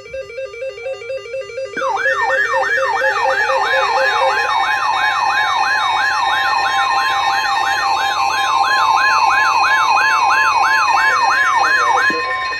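A short electronic jingle, then from about two seconds in a rapid yelp siren sweeping up and down about two to three times a second. About four seconds in, a steady 1050 Hz NOAA Weather Radio warning alarm tone joins it. Both cut off together shortly before the end.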